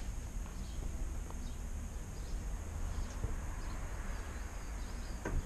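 Outdoor ambience on a rooftop terrace: faint, scattered bird chirps over a steady low rumble, with one short knock near the end.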